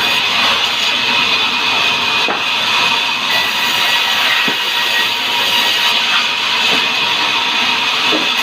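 Sawmill saw cutting hardwood timber, giving a steady, loud, high-pitched rushing noise without pause.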